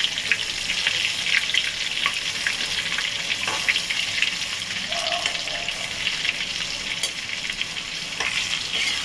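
Batter-coated chicken pakoras deep-frying in hot oil in a kadai: a steady sizzle full of small crackling pops. The metal slotted skimmer scrapes and taps against the pan a few times as the pieces are turned.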